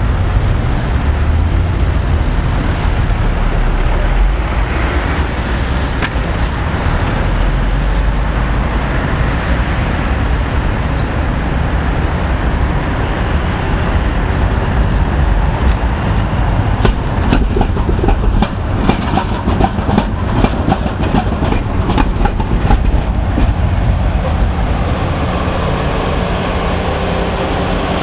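Ganz articulated tram running on street track: a steady low rumble, with a quick run of sharp wheel clicks and clacks over the rails in the second half.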